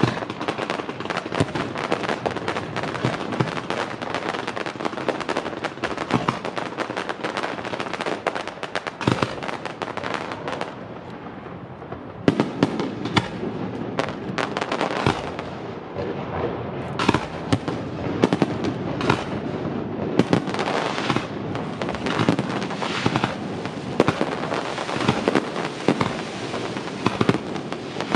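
Fireworks display: a dense, continuous crackle of bursting shells, which dips briefly about eleven seconds in and then resumes with many sharp bangs from aerial shell bursts.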